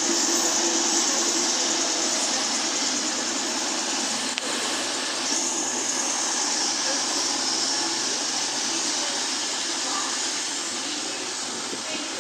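Class 222 Meridian diesel multiple unit arriving along the platform and slowing to a stop: a steady rush of its underfloor diesel engines and wheels on the rails, with a hiss coming in about five seconds in and the noise slowly fading.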